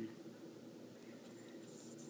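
Quiet room tone with no distinct sound.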